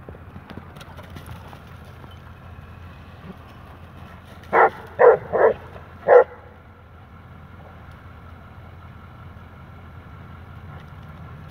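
A dog giving four short, loud play barks in quick succession about four seconds in, while dogs wrestle. A steady low background rumble runs underneath.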